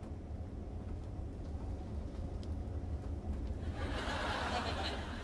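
Steady low drone of a jet airliner's cabin in flight, with a brief hiss of noise near the end.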